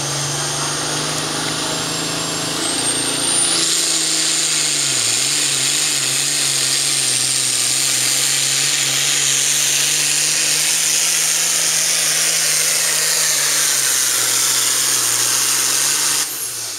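John Deere Super Farm class pulling tractor's turbocharged diesel running hard under load on a pull. A high whistle rises in pitch about two seconds in, and the engine gets louder at about three and a half seconds. The sound drops away abruptly near the end.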